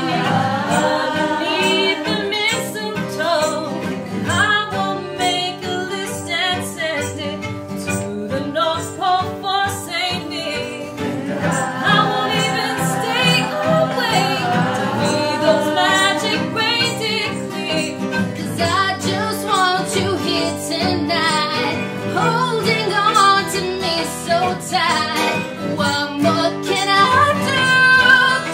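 A mixed group of men's and women's voices singing a Christmas song together, accompanied by acoustic guitar and fiddle.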